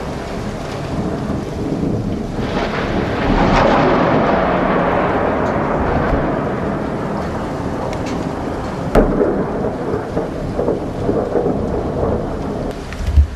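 Heavy rain in a violent thunderstorm, with thunder: a rumble swells about three seconds in, and a sharp crack about nine seconds in is followed by more uneven rumbling. A low thump comes just before the end.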